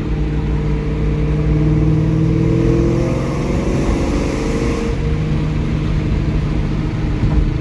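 1999 Ford Mustang SVT Cobra's 4.6-litre DOHC V8 rising in revs as the car accelerates, then dropping back about five seconds in to a steady cruise.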